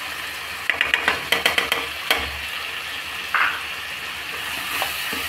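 Onion-and-spice masala sizzling in hot oil in a kadhai while a plastic spoon stirs and scrapes it. About a second in comes a quick run of sharp taps, and there is a short scrape a little past the middle.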